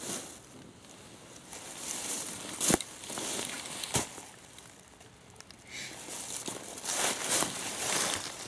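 Rustling of camouflage clothing and gear, with dry leaf litter shifting, as a person moves and handles equipment close to the microphone. Two sharp clicks stand out, about three and four seconds in.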